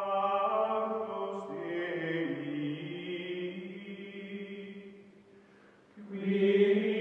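Music of choir-like voices holding long sustained chords. The chord shifts lower about two seconds in, fades away near five seconds, and swells back in loudly about six seconds in.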